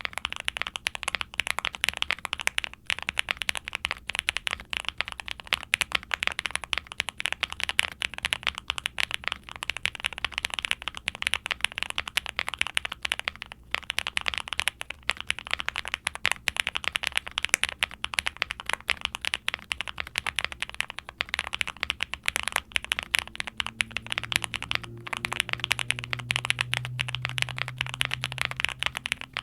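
Continuous fast typing on a QwertyKeys QK65 aluminium-case keyboard with lubed Gateron Baby Kangaroo tactile switches (nylon top housings) on a POM plate under ABS keycaps: a dense, deep, creamy clatter of keystrokes with a few brief pauses. A faint low hum comes in near the end.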